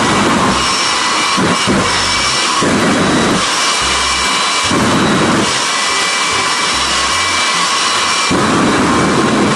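Jet engine on the back of a drag-racing school bus, running: a loud, steady rushing noise with a high turbine whine on top that wavers a little.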